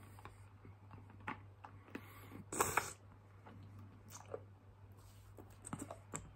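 Quiet, wet mouth clicks and sucking sounds from a person sucking on a lollipop, with one louder breathy burst about two and a half seconds in.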